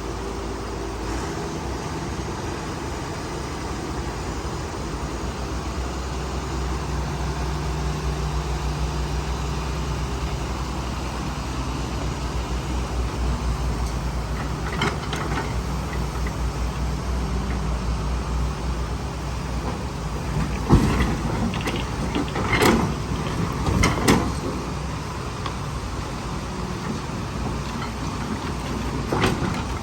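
Excavator's diesel engine running steadily, working a little harder through the first two-thirds, with several sharp knocks or clanks in the second half.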